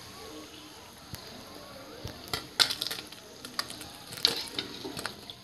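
A chicken-and-egg-stuffed flour pastry deep-frying in hot oil, sizzling steadily. Sharp crackles and pops come in clusters about two seconds in and again about four seconds in.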